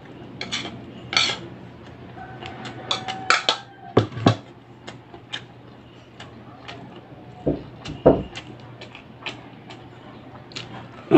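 Metal spoon clinking and scraping against plates in scattered sharp clicks, with a few heavier knocks of dishes on the table about four and eight seconds in.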